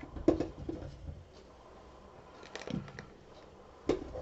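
A few scattered knocks and clicks as boiled new potatoes are put into a ceramic serving bowl, the sharpest near the start and again near the end.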